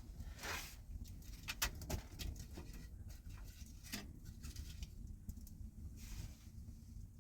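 Scattered light clicks and a few short rustles over a steady low rumble, with no clear rhythm.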